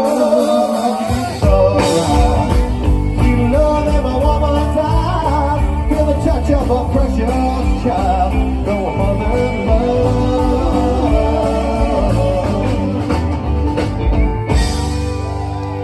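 Live country-rock band playing through a PA, with guitars and singers; the bass and drums come in strongly about a second in.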